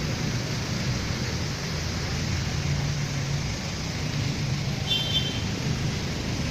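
Street traffic: vehicle engines running in slow-moving traffic with a steady low drone, and a brief high-pitched tone about five seconds in.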